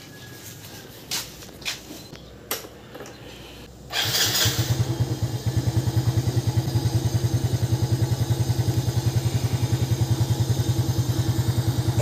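A few light clicks and knocks. Then, about four seconds in, a small motorcycle engine starts and settles into a steady, evenly pulsing idle.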